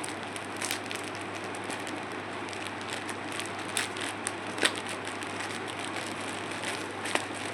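Plastic packaging rustling and crinkling as a clothing parcel is unwrapped and handled, with scattered sharper crackles.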